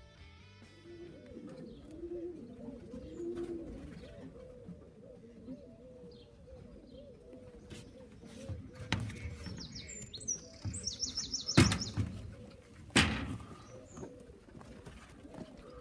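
Tippler pigeons cooing: repeated low warbling coos. From about nine seconds in come a few loud bursts of wing flapping, with a quick run of high chirps near eleven seconds.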